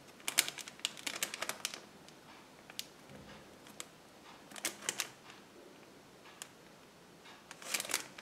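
Trading cards and their packaging handled on a tabletop: short bursts of light clicking and crackling at the start, around the middle and near the end, with a few single ticks between.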